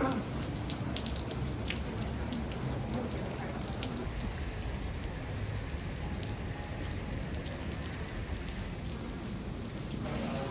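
Steady rain falling on wet paving outdoors, an even hiss with scattered sharp drop hits, most of them in the first few seconds.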